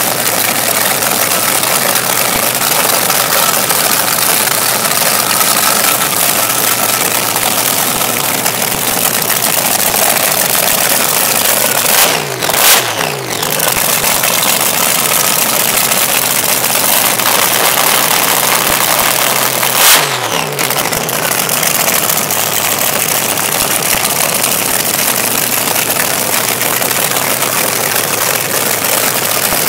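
Supercharged engine of a front-engine dragster running loudly through its open headers at idle. It is blipped sharply twice, about twelve seconds in and again about eight seconds later, and the revs fall back after each blip.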